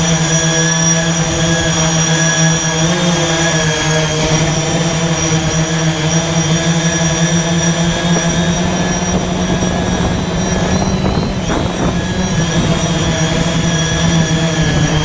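Y6 multirotor drone's six brushless motors and propellers whining steadily in flight. The pitch wavers and dips briefly about two-thirds of the way through, then settles again.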